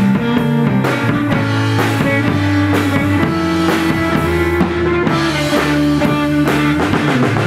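Instrumental rock music: guitars over a bass line and a steady drum-kit beat, no singing.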